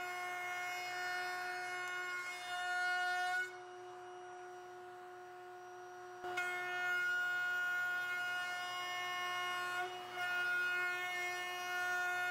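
DeWalt cordless trim router running in a router table as a plywood strip is fed past the bit: a steady whine. It drops away to a quieter level for about three seconds in the middle, then cuts back in suddenly.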